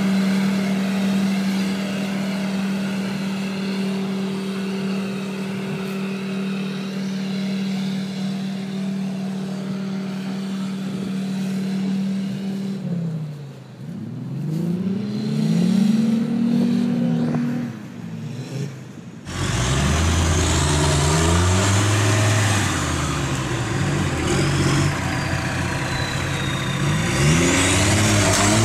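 Off-road 4x4 engines working in deep mud: one engine held at steady high revs for about twelve seconds, then revved up and down several times. About two-thirds of the way through the sound changes abruptly to a deeper engine rumble with more revving, as one vehicle tows a stuck buggy out on a rope.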